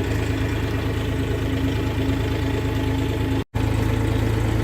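Compact tractor's engine idling steadily while it is loaded onto a trailer. The sound cuts out for a split second about three and a half seconds in.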